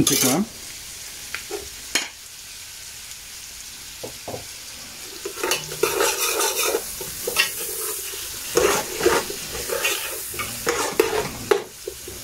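Sliced onions sizzling as they are tipped into hot oil in a metal pot, frying with a steady hiss. From about five seconds in, a metal spoon scrapes the pot in repeated irregular strokes as it stirs them.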